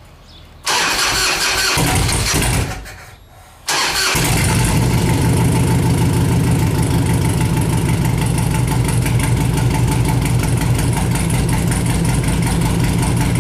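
2002 Harley-Davidson Electra Glide Classic's Twin Cam 88 V-twin cranked on the electric starter: a first try runs about two seconds and dies away, then a second start about a second later catches and the engine idles steadily with an even, lumpy beat. The owner thinks the battery may be a little low, to be watched for the battery drain problem.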